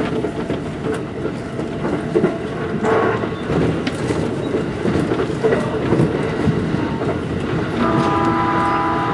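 Running noise of an E531 series electric train heard from just behind the driver's cab, its wheels clattering over rail joints and points. Near the end a steady tone of several notes comes in and holds.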